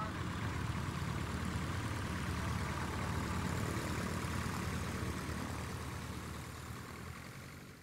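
Light aircraft's propeller engine running steadily at climb power as the plane climbs away just after takeoff, fading out near the end.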